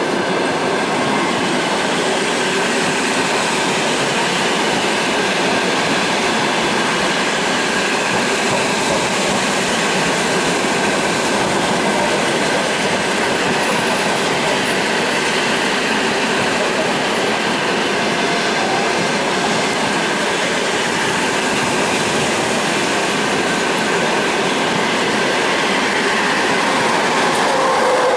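Express passenger train hauled by an EP20 electric locomotive passing close by at speed: a loud, steady rush of wheels on rail with rhythmic clickety-clack from the coaches.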